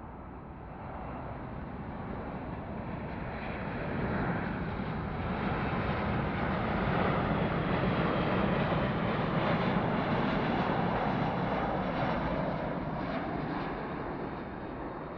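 Boeing 737-700's twin CFM56-7B jet engines on final approach: a steady jet noise that builds as the airliner comes close, is loudest around the middle, and eases off near the end as it flies on toward the runway.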